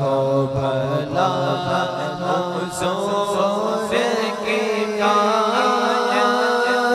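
A male naat reciter singing an Urdu/Arabic devotional naat unaccompanied by instruments, in a melismatic chant with a sliding, ornamented melody over a steady held drone.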